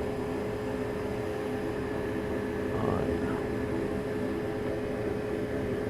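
A fan or blower running steadily: an even whooshing hum with a constant mid-pitched tone through it.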